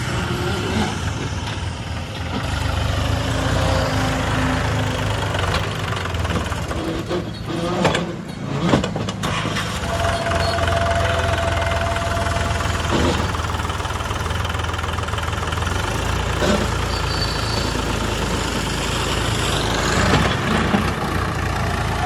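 Sonalika DI 42 RX tractor's diesel engine running steadily while it tows a trolley loaded with mud.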